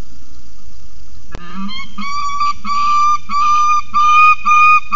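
Juvenile peregrine falcon begging, a run of even-pitched wailing calls about two a second, starting after a sharp click about a second and a half in, over a steady hiss.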